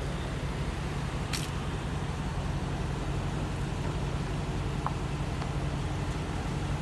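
Vehicle engines idling with a steady low hum as a Mercedes G-Class creeps slowly up onto a car carrier's steel ramp. A brief sharp squeak comes about a second and a half in.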